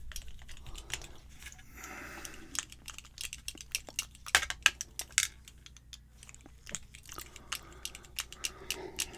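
Irregular small clicks and rattles of a key being inserted and turned in a Yale-style pin-tumbler lock cylinder to lock it back up.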